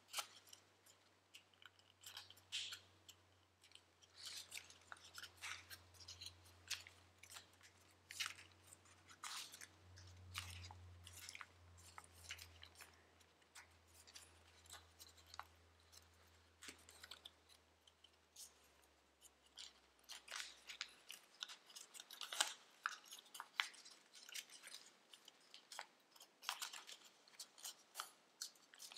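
Sheet of thin origami paper crinkling and crackling in short, irregular bursts as fingers crease, squeeze and shape a folded model.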